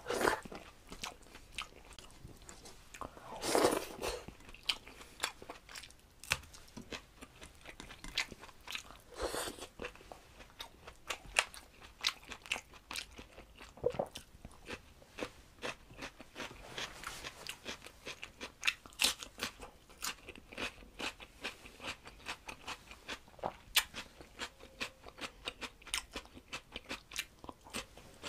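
Close-miked mouth sounds of a man eating rice and curry by hand: steady chewing with many quick, sharp, crunchy clicks, including bites of raw cucumber. A louder rushing sound comes about three and a half seconds in.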